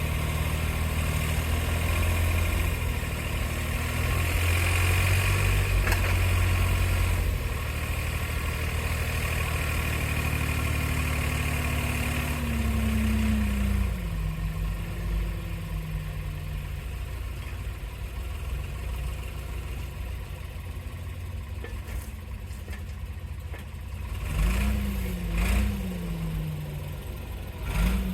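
Doosan DX35z mini excavator's diesel engine running under load, louder through the first half, its pitch sliding down about halfway through and settling lower. Near the end the engine speed rises and falls twice, with a few sharp knocks.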